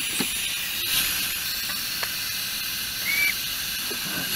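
Steady hiss of steam from a 5-inch gauge live-steam locomotive, with a few light clicks and a short high squeak about three seconds in.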